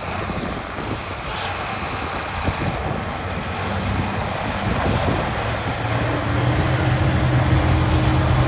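Heavy vehicle or machinery running steadily, with a faint regular high ticking; a low hum comes in about six seconds in and the sound grows slightly louder.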